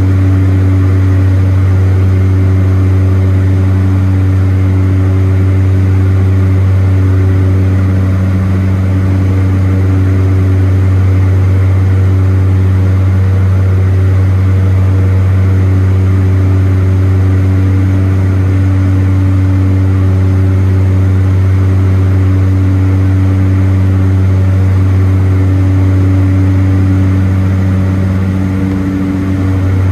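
Cabin drone of a de Havilland Canada DHC-6 Twin Otter in flight: its two turboprop engines and propellers hold a loud, steady low hum with a few higher overtones, dipping slightly near the end.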